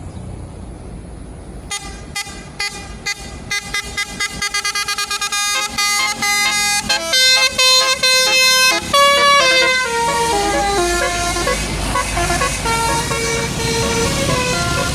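Bus 'telolet basuri' multi-tone musical air horn. It gives a string of short toots, then a quick burst of rapid pulses, then held notes stepping up and down through a melody. A bus engine rumbles underneath in the second half.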